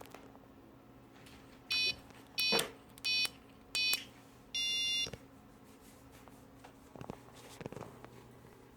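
An Arduino alarm's electronic buzzer beeping: four short beeps about two-thirds of a second apart, then one longer beep, the sound of its keypress and confirmation tones.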